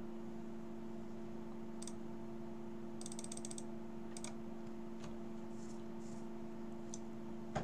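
Scattered clicks of a computer keyboard and mouse, with a quick run of keystrokes about three seconds in and a sharper click near the end, over a steady low hum.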